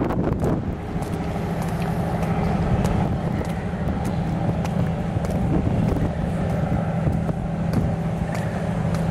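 An engine running steadily with a low, even hum. A gust of wind noise comes right at the start, and faint clicks are scattered over the hum.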